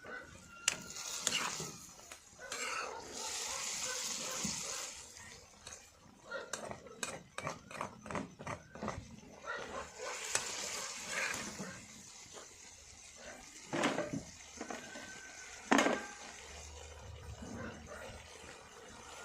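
A spoon stirring curry in a cooking pot, knocking and scraping against the metal many times. There is a stretch of hiss a few seconds in and another about halfway through.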